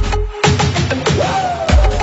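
Electronic dance music: the steady kick drum drops out for about a second and a half while the higher percussion keeps going and a synth tone bends in pitch, then the kick comes back near the end.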